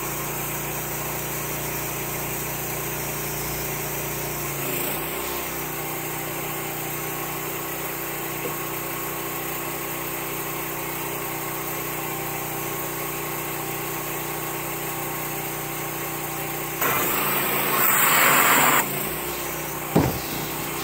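Engine-driven pressure washer running steadily, powering a sludge sucker, a water-driven suction pump that is drawing up a puddle. A louder hiss lasts about two seconds near the end, followed by a sharp knock.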